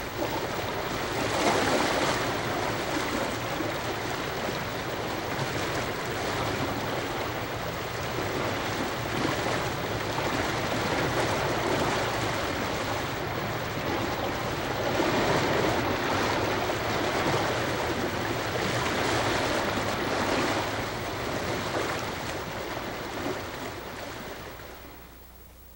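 Ocean surf washing onto a sandy beach: a steady rush of water that swells and eases several times, fading out near the end.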